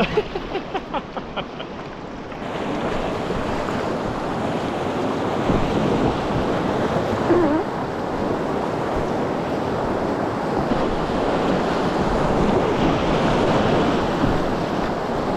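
Whitewater rushing through a river rapid, heard close up from an inflatable packraft running it: a loud, steady rush of water that sets in about two seconds in.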